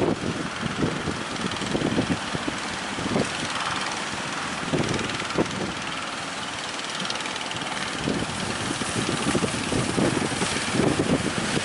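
Wind buffeting the microphone in uneven gusts over the steady rush of heavy surf.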